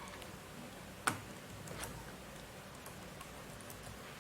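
Two light plastic clicks, a sharp one about a second in and a fainter one shortly after, as a replacement keyboard is pressed down into an HP ProBook 450 G2 laptop's deck so its locking tabs snap into place.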